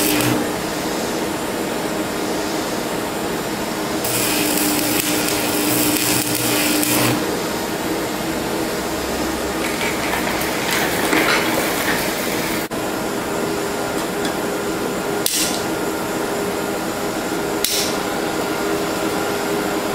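Stick-welding arc crackling and hissing as a nickel rod is run on a cast iron exhaust manifold: briefly at the start, then again for about three seconds a few seconds in. After that comes a steadier hiss, plausibly from a propane torch heating the casting, with a few sharp clicks.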